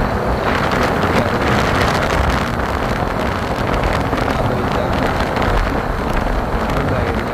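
Wind buffeting the microphone of a phone held on a moving motorcycle, a steady loud rush mixed with road and engine noise.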